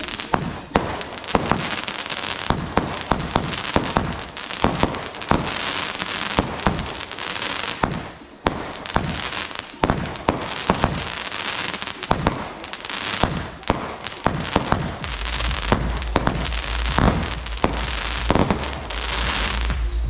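Consumer fireworks going off in rapid succession: shots launching and bursting overhead, one to three sharp bangs a second with crackling between them.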